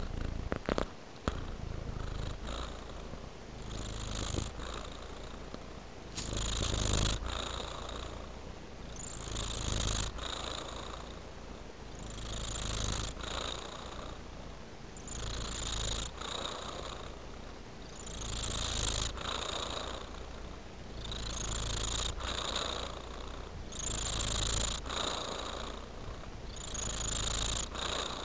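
Domestic cat purring steadily, the purr swelling and easing every few seconds with its breathing, with occasional short clicks as it licks its fur.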